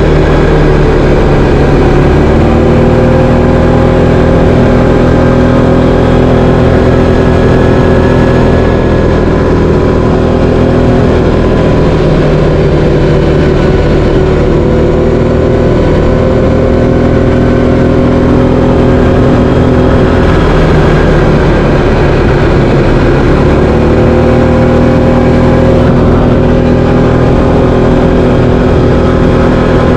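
Linhai 500 ATV's single-cylinder engine running under way, loud and continuous. Its pitch rises and falls a few times as the throttle is opened and eased off.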